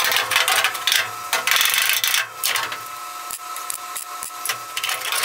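Hammer and dolly working steel sheet metal: a fast, dense run of metallic taps with a few short pauses, the panel ringing under the blows. The blows are bringing the edges of new and original sheet metal together so they sit close enough to weld.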